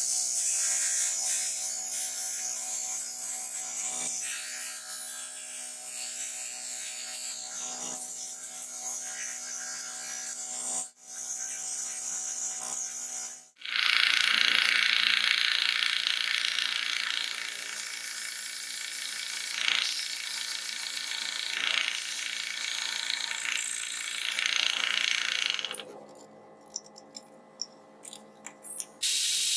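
A bench disc sander runs while the edge of a white plastic disc is sanded against it. After a cut, a drill press drives a hole saw through white plastic sheet, louder than the sanding, and stops about four seconds before the end, leaving a few light clicks.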